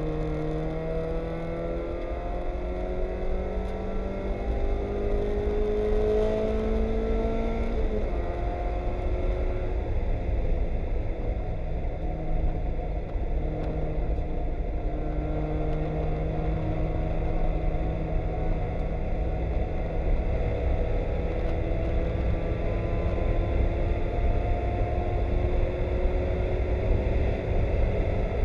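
Mazda Miata race car's four-cylinder engine heard from inside the cockpit, pulling up through the revs for about eight seconds, then dropping sharply in pitch as if on an upshift. After that it holds steadier revs and climbs again later, over a heavy low rumble of the car at speed on a wet track.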